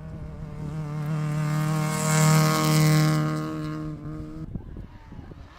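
Rally car engine held at high, steady revs as the car passes at speed, growing louder to a peak about halfway through, then fading. It cuts off sharply near the end.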